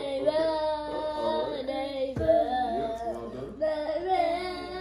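Children and a woman singing together in a group, several voices holding and bending long notes. One thump about two seconds in.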